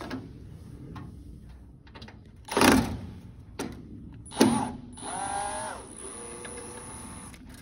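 Cordless drill backing out screws: two short, loud bursts, then the motor runs for about two seconds with a steady whine.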